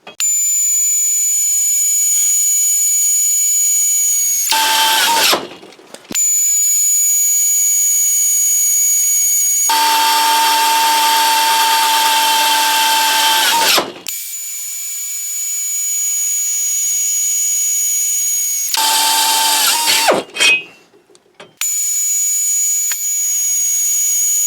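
A pneumatic air drill and a Makita brushless cordless drill, taking turns drilling a 5/16 inch bit through 1/8 inch steel angle iron at about 500 rpm. The air drill's runs are a steady airy hiss with a high whine. In the middle, the brushless drill gives a louder, lower motor-and-gear whine. Each run starts and stops abruptly.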